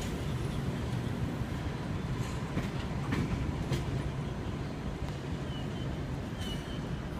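V-set electric intercity train rolling slowly out of the platform: a steady low rumble with wheels clicking over rail joints and a few brief high wheel squeals.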